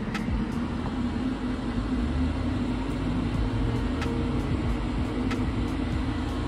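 Small electric exhaust fan running with a steady whirring hum.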